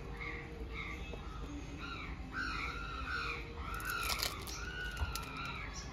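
Birds calling over and over, short rising-and-falling calls overlapping one another, with a couple of light knocks about four and five seconds in.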